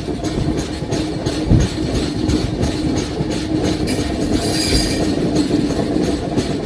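Indian Railways LHB passenger coaches hauled by a WAP-7 electric locomotive running along the track, wheels clattering in a quick regular clickety-clack over a steady rumble and hum, with a brief high-pitched rush about four and a half seconds in.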